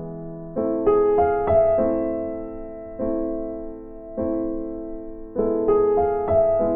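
Background music: piano-like keyboard chords, each struck and left to fade, with quick runs of rising notes twice.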